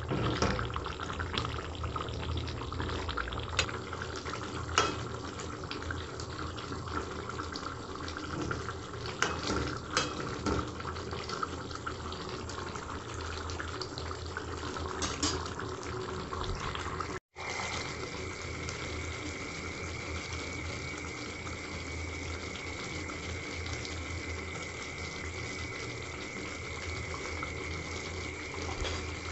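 Chicken curry simmering and bubbling in a pan on a gas burner, with a few sharp clicks in the first half. After a brief drop-out about two-thirds in, a steady high tone joins.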